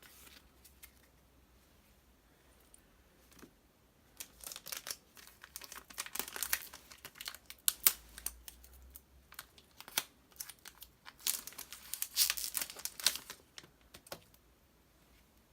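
Foil trading-card booster-pack wrapper crinkling as it is handled, in quick crackly bursts starting about a quarter of the way in and stopping shortly before the end.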